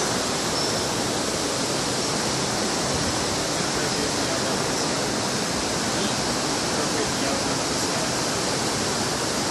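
A noisy, rushing river, taken to be the Merced, runs as a steady, even hiss.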